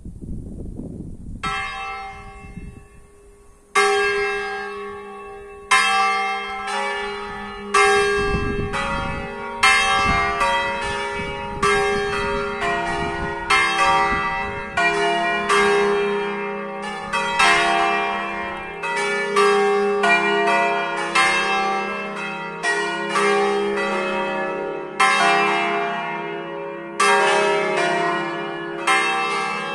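A set of five swinging church bells tuned in E-flat major (E♭, F, G, A♭, B♭), cast by Pruneri of Grosio and Ottolina of Seregno, ringing together as the third call (terzo segno). A faint first strike comes about a second and a half in and the loud strikes begin about four seconds in, then the bells ring in a dense, rhythmic peal with their tones overlapping.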